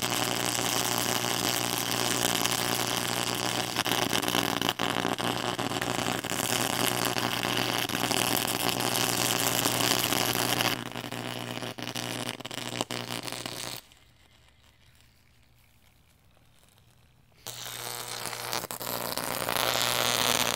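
High-current electric arc burning in a pool of molten rock salt: a steady buzz with a crackling hiss. It drops in level about eleven seconds in and goes almost silent for about three and a half seconds, then comes back and grows louder near the end.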